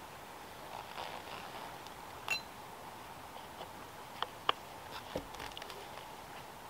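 Bow drill being worked: faint rubbing of the wooden spindle turning in the notch of a basswood hearth board, with a few sharp clicks along the way.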